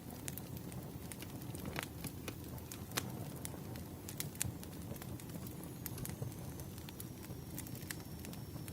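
Wood fire burning with a steady low rumble and irregular sharp crackles and pops.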